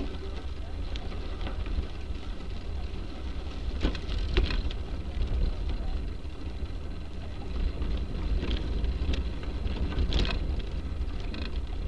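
Wind buffeting the microphone of a rear-mounted bike camera, heard as a steady low rumble. Over it comes the noise of a bicycle rolling along a gravel path, with a few short rattles from bumps, about four seconds in and again near the ten-second mark.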